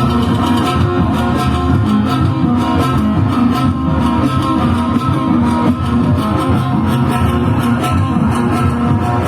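Loud band music at a party, with a plucked string instrument carrying the melody over bass and a steady beat, and no singing.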